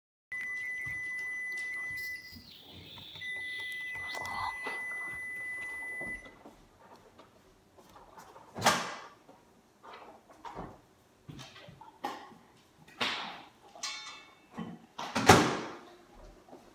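A steady high electronic beep held for about two seconds, a short break, then held again for about three seconds. After it come scattered short knocks and rustles, two of them louder than the rest.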